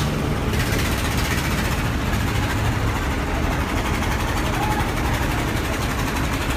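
Steady low rumble of large river ferries' engines running, with water churning between the hulls.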